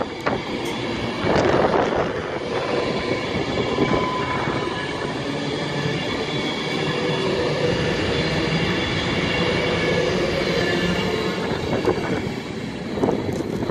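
Class 390 Pendolino electric multiple unit pulling out and moving past, a steady mix of rolling wheel-on-rail noise and thin electric tones from its traction equipment, with a few clicks near the start and end.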